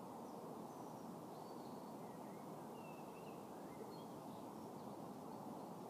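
Faint outdoor ambience: steady low background noise with scattered, distant bird chirps.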